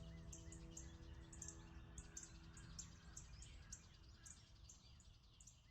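Faint wild birds chirping, short high notes about two to three a second. Under them a held low note of background music fades out about halfway through.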